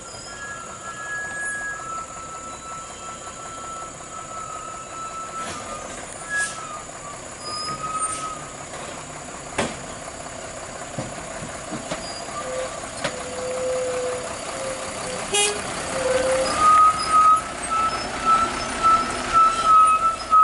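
Nissan Diesel (UD) CWA 260X bulk-cement tanker truck running slowly on a rough dirt road, its diesel engine growing louder over the last few seconds as it comes close and passes.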